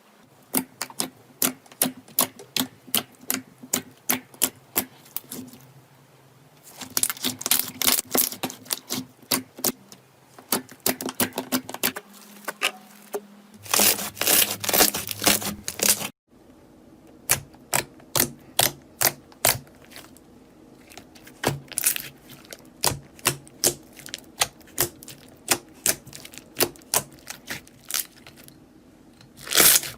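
Slime being pressed and poked by hand, making a steady run of sharp clicking pops, a few a second, with busier flurries here and there.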